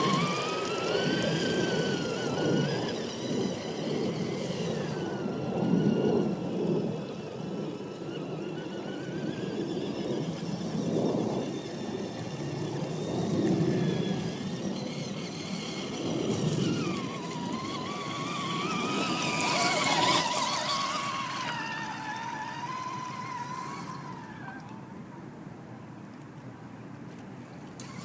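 Axial SCX10 Deadbolt RC crawler driving through mud and water: its electric motor whines, the pitch rising and falling with the throttle, over a rough churning noise from the wheels. The sound eases off in the last few seconds.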